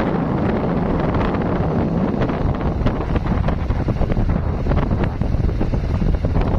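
Strong wind buffeting a phone's microphone, a steady rough rumble with short crackles from about halfway through.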